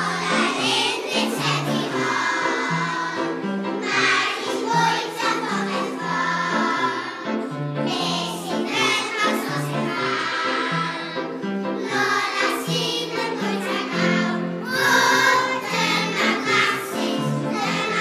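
A choir of young children singing a song together over an instrumental accompaniment with a steady bass line.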